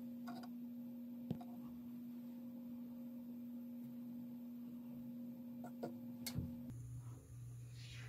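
A faint steady low hum that stops shortly before the end, with a few faint clicks: one about a second in and a couple around six seconds.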